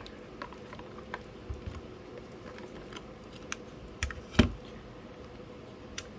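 Plastic keycaps and a mechanical keyboard being handled: scattered, irregular light clicks and knocks, the loudest about four and a half seconds in.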